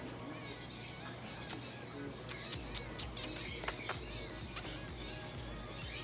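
Parrots chirping, whistling and squawking, with several sharp clicks, over background music.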